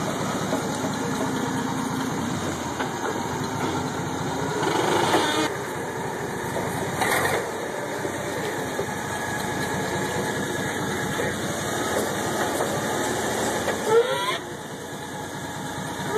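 Forklift engine running steadily while it manoeuvres with a heavy load, with a short rising squeak about fourteen seconds in.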